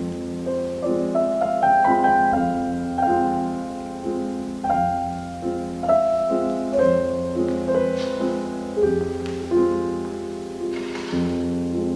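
Slow piano music: a melody of struck single notes moving up and down over held lower chords.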